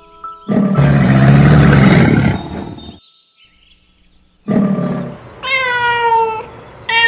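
A loud, rough growling animal call for about two seconds, then after a pause two drawn-out meowing calls that fall in pitch near the end.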